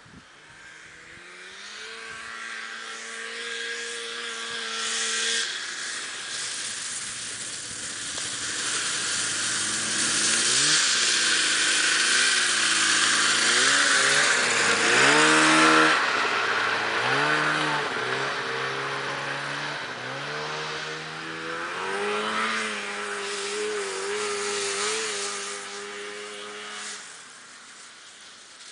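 1996 Polaris XCR 440 snowmobile's two-stroke engine revving hard as the sled rides past, its pitch swinging up and down with repeated throttle blips. It grows louder to a peak about halfway through, revs again, then fades away near the end.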